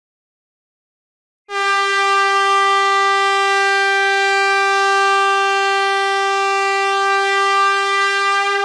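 Air horn sounding one long, steady blast at a single pitch, starting about a second and a half in.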